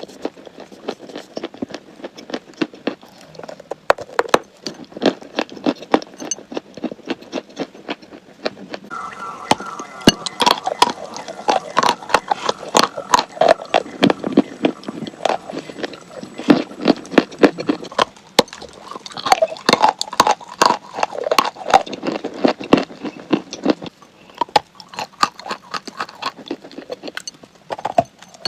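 Someone biting and chewing crunchy chalk, close to the microphone: a dense run of sharp, rapid crunches that gets busier and louder about a third of the way in.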